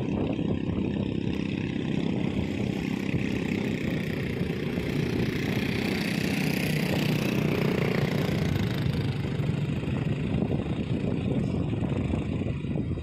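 A heavy engine running steadily, swelling a little about halfway through and then settling back.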